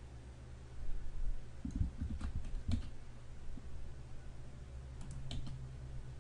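Keystrokes on a computer keyboard: a cluster of clicks about two seconds in and a few more about five seconds in, over a low steady hum.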